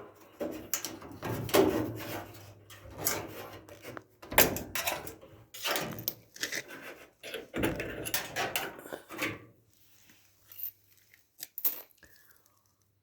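Metal clinks, knocks and rattles as springs are unhooked and the panels of a Whirlpool Cabrio dryer cabinet are handled. The clatter stops about two-thirds of the way through, leaving a few faint clicks.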